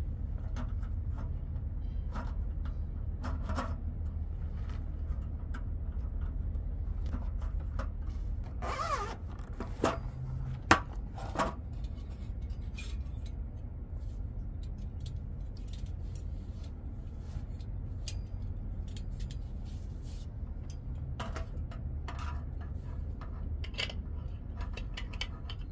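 Camping cookware and a folding gas stove being handled and set down on a slatted roll-up table: scattered light clicks, taps and scrapes, with one sharp click about ten seconds in, over a steady low hum.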